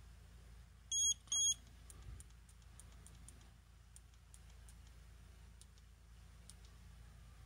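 Shimano Force Master 800 electric fishing reel giving two short, high beeps about a second in as its menu is opened, followed by a run of faint clicks from its buttons being pressed.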